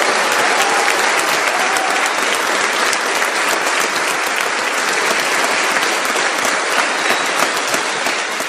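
A large audience applauding, with dense, steady clapping from many hands that begins to fade near the end.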